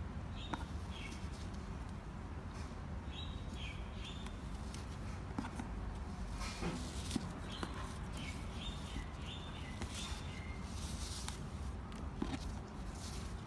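Birds chirping in short phrases a few times over a steady low rumble, with rustling and light clicks as a ribbon is untied and pulled off a cardboard gift box.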